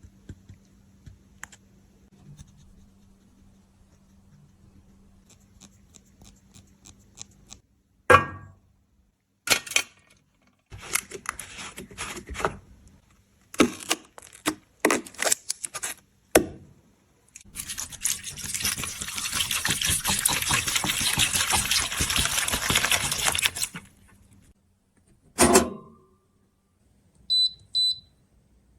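Close-up sounds of handling broken cosmetics: a sharp click, a run of short scratchy bursts, then about six seconds of steady scratchy noise, another click, and two short high beeps near the end.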